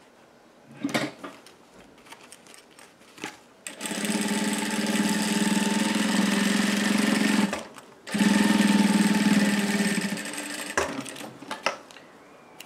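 Industrial straight-stitch sewing machine running steadily in two stretches, about four seconds then about two seconds with a short stop between, topstitching a seam through fabric and lining. A few small handling clicks come before and after the runs.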